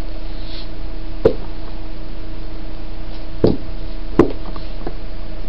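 A collapsible plastic basin with folding walls being handled and pulled open, giving three sharp plastic clicks and knocks, the last the loudest, over a steady background hum.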